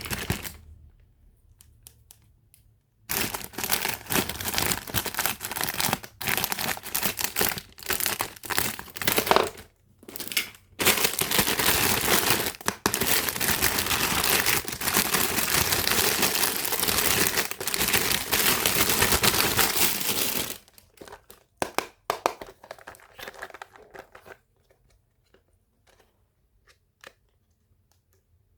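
Packaging being crinkled and torn by hand in dense, crackly bursts with a few short breaks, followed by scattered light clicks and taps.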